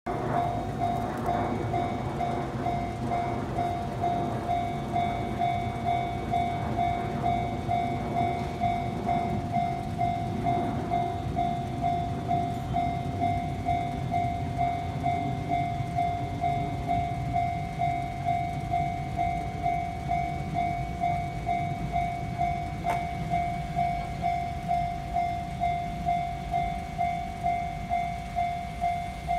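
Japanese level-crossing warning bell ringing at an even pace of about one and a half strikes a second. Under it is the rumble of a Nishitetsu 9000 series electric train passing over the crossing, loudest in the first ten seconds or so and easing after that.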